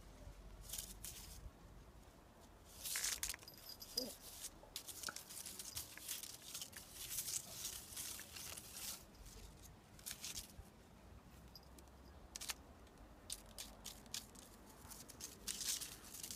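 Crisp rustling and crackling of grass, in irregular bursts, as a cat moves and pounces at a strap dragged through it.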